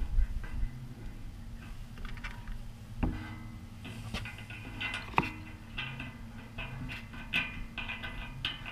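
Scattered light knocks and clicks, the sharpest about three seconds and about five seconds in, over a steady low hum.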